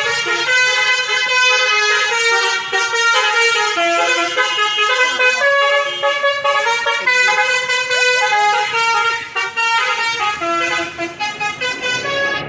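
Bus telolet horn of the Basuri type playing a long, unbroken melody, its notes stepping up and down in pitch, sometimes several tones at once.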